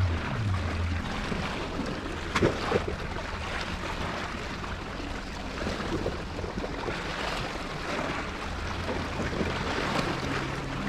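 Sea waves washing against breakwater rocks, with wind on the microphone. A couple of short knocks a little over two seconds in.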